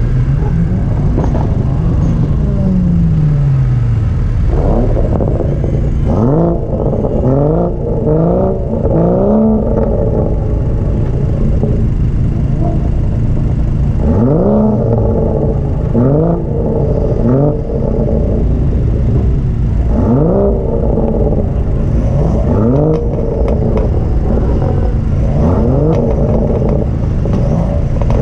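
Car engine and exhaust running loudly throughout. About two seconds in the revs fall away in one long drop; after that come clusters of short, quick rising rev sweeps, each cut off and repeated several times in a row.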